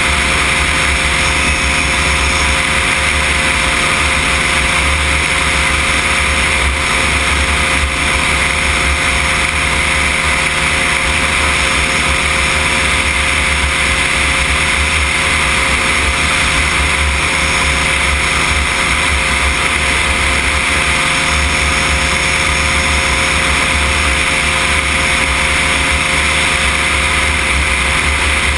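Cosmos weight-shift microlight trike in level flight, its engine and pusher propeller running steadily at cruise power, with airflow rushing over the wing.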